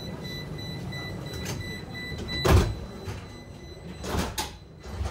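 Tram doors working: a steady high-pitched tone cuts off with a loud thump about two and a half seconds in, followed by two more knocks near the end, over the tram's low rumble.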